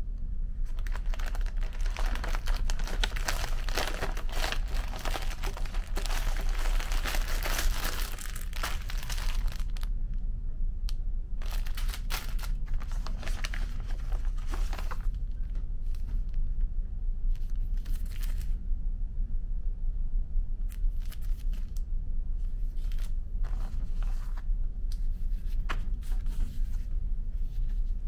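Thin plastic packaging being opened and handled: crinkling and rustling of plastic film, dense for most of the first ten seconds and again from about 11 to 15 seconds, then scattered small rustles and clicks. A steady low hum, the ship's drone, runs underneath.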